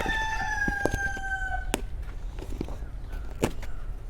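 A rooster crowing once, a single long call of about two seconds that falls slightly in pitch. Sharp clicks and taps from handling the phone box come through over it and again about three and a half seconds in.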